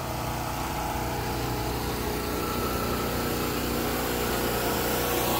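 A motor engine running steadily, growing gradually louder.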